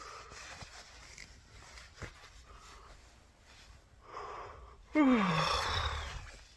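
A man's drawn-out yawn: a breathy intake, then a long exhale with his voice sliding down in pitch, from someone just woken and still tired.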